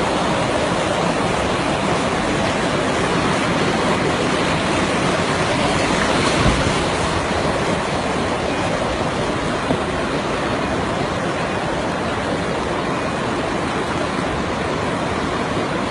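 Steady rushing roar of fast-flowing floodwater pouring across a road, with a brief thump about six seconds in.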